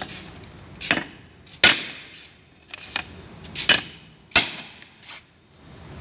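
Hammer blows driving a new oil seal for a Komatsu D155 bulldozer into its steel housing, striking the old seal used as a driver. There are about six sharp metal-on-metal strikes at uneven intervals, with a few lighter knocks between them.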